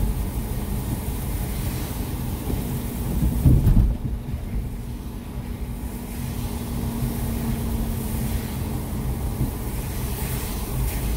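Road and engine noise heard inside a car driving on a rain-wet road: a steady low rumble, with a hum that holds for several seconds and one louder thump about three and a half seconds in.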